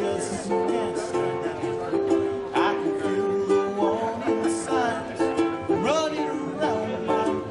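Live acoustic band playing an instrumental passage: strummed string instruments keep a steady rhythmic pulse, with a couple of sliding notes about two and a half and six seconds in.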